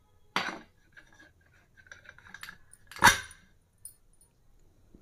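Pressure cooker whistle weight being fitted onto the vent pipe of a metal lid: two sharp metallic clanks a little under three seconds apart, the second louder, with light metal scraping between them.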